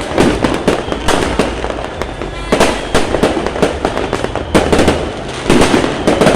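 New Year fireworks display: a rapid, uneven string of aerial shell bangs and crackles, with denser clusters of bursts about two and a half seconds in and again near the end.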